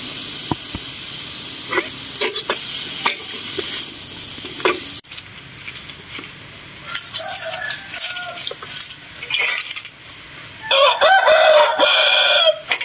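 Minced pork and mushrooms sizzling in a wok, with small scrapes of the spatula, for the first few seconds. Near the end a rooster crows loudly, one long crow of about two seconds.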